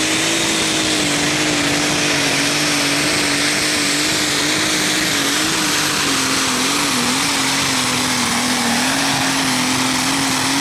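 Light modified pulling tractor's engine running flat out under load while dragging the weight sled, held at high, steady revs with a faint high whine above it. Its pitch sags and wavers a little past the middle of the pull.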